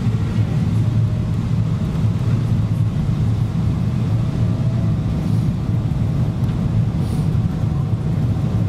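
Cabin noise inside a Boeing 777-200ER airliner on approach: a steady low rumble of the engines and airflow, with a faint steady hum above it.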